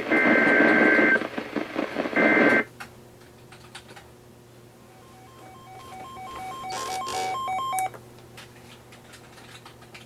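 NOAA Weather Radio broadcast through static, carrying the warbling data bursts of an EAS SAME alert header: one burst about a second long, then a shorter one. The broadcast then cuts off, and a weather alert receiver gives a rapid train of electronic beeps, about three or four a second, for nearly three seconds.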